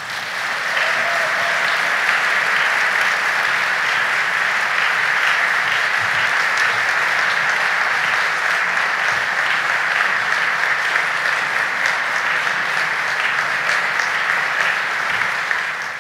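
A large crowd giving a standing ovation: dense, steady applause that swells up within the first second.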